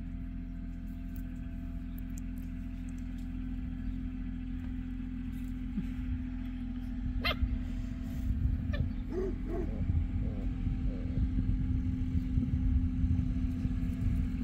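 Basset hound puppies giving a few short yips and whines about halfway through, over a steady low rumble with a hum that grows louder in the second half.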